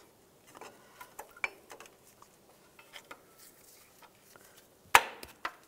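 Light metallic clicks and scrapes of drum-style parking brake shoes and their adjuster being worked into place on a rear hub, ending in one sharp metallic snap near the end as a part seats.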